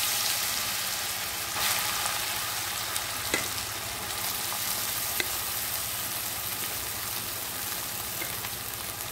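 Freshly grated raw mango sizzling in hot oil in a kadai. The hiss is loudest at first and settles slowly, with a few faint clicks.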